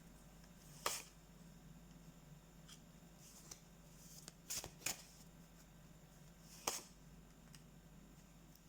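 Tarot cards being turned over and laid down: a handful of soft card slaps and rustles, two of them in quick succession near the middle, over a faint steady hum.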